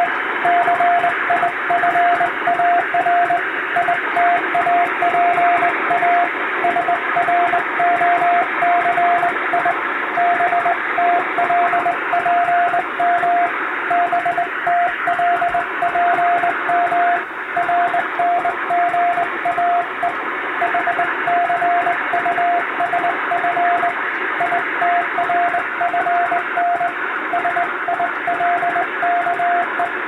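International Morse code sent by hand on a straight telegraph key: a steady mid-pitched tone keyed on and off in dots and dashes, spelling out five-letter practice code groups, over a steady radio hiss.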